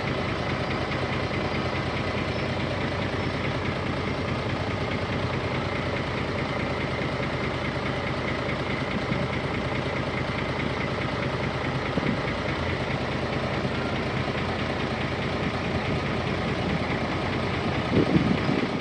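Diesel engine of heavy earthmoving machinery running steadily at a low, even pace, with a brief louder burst near the end.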